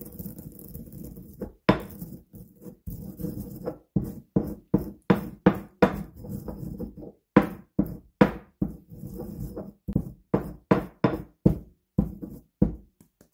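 A marble pestle grinding dried rosemary in a marble mortar: first rubbing and scraping stone on stone, then from about four seconds in, quick pounding strokes, roughly two to three knocks a second, as the needles break down to powder.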